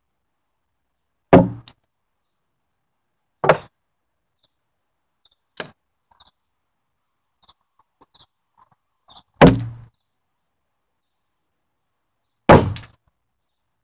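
Five sharp thwacks of a blade striking wood, spaced unevenly a couple of seconds apart, each with a brief ringing tail.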